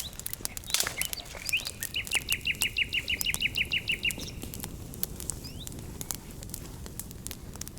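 A bird sings a rapid trill of about a dozen evenly spaced high notes lasting about two seconds, starting near the second second. Scattered sharp crackles and pops of a freshly lit wood campfire run underneath.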